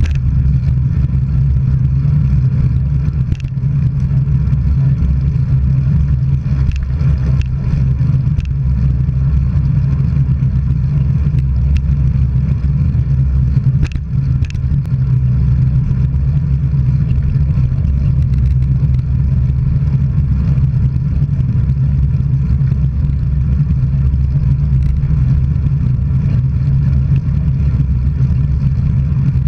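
Steady low wind rumble on the microphone of a camera moving at riding speed along a road, with road noise and a few sharp clicks.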